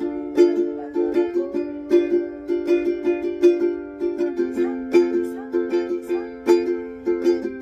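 Ukulele strummed in a steady calypso-style rhythm, changing chord about four seconds in.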